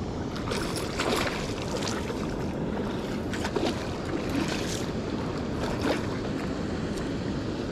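A walleye splashing at the surface several times in short bursts as it is reeled in on a spinning rod. Steady wind noise on the microphone runs underneath.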